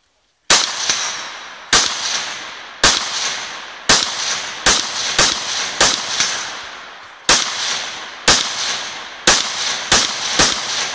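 Semi-automatic rifle firing about a dozen shots in an uneven string, roughly half a second to a second apart, each shot trailing off in a long echo.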